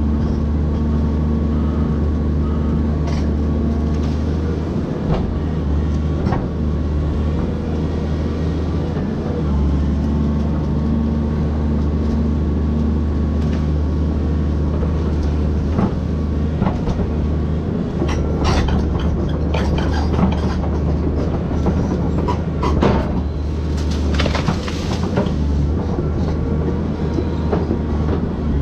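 Volvo excavator's diesel engine running steadily under hydraulic load, with a cluster of sharp cracks and knocks in the second half as the machine works among the citrus trees.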